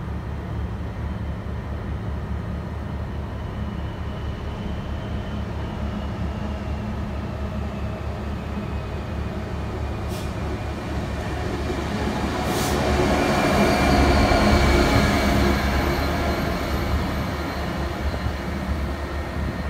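Freightliner Class 66 diesel locomotive running as it hauls a freight train through the station, its two-stroke V12 engine throbbing steadily. The sound grows louder as it approaches and is loudest about two-thirds of the way through as it draws close. A couple of sharp clicks come from the wheels on the rails.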